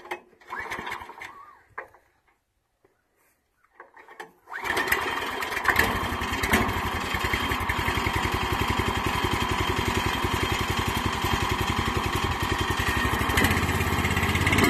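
The Timbery M100 sawmill's 9 hp Subaru single-cylinder engine catches about four and a half seconds in and then runs steadily at an even, fast firing rhythm. A few faint clicks and rattles come before it starts.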